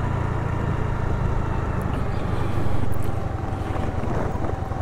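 Honda Activa scooter's single-cylinder four-stroke engine running steadily while riding along, a continuous low rumble with fast, even pulsing.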